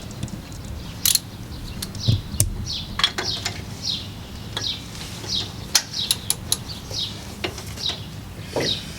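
Small birds chirping over and over, with sharp metallic clicks and clinks scattered through, hand tools and brake parts knocking together, the clinks being the loudest sounds.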